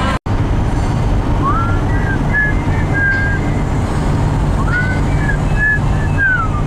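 Steady low road rumble of a moving car heard from inside, with a high melodic phrase of short notes, rising into it, heard twice.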